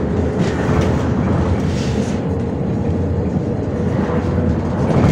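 Interior noise of a MAZ 105 articulated city bus on the move: a steady rumble of engine and tyres with a faint steady whine. Traffic hisses past outside, most clearly about two seconds in.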